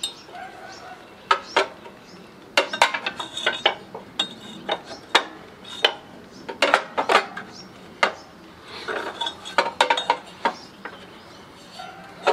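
Irregular metallic clanks and clinks, some in quick clusters, as a pry bar is worked under a rust-seized crankshaft pulley and the pulley is jiggled loose on the mower engine's crankshaft.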